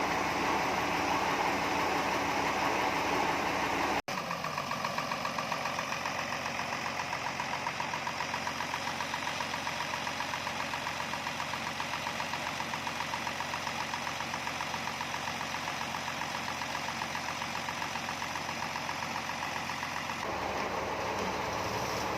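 Sawmill machinery running with a steady engine-like drone. The sound cuts off abruptly about 4 seconds in and resumes with a different tone and a fast even pulsing, then changes again near the end.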